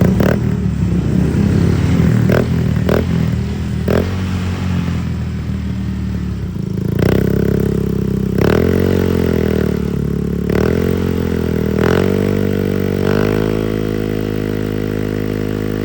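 Honda Click scooter's single-cylinder engine running through an aftermarket Apido exhaust pipe: a lumpy idle with a few sharp pops, then about five short throttle blips in which the pitch rises and falls back.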